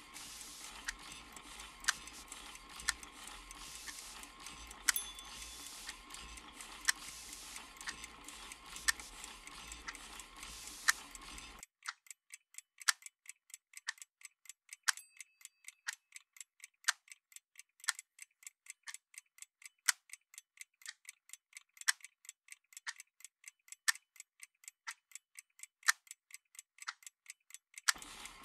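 Clock ticking, about one tick a second over a steady hiss; about 12 seconds in the hiss cuts out and the ticks come faster, several a second.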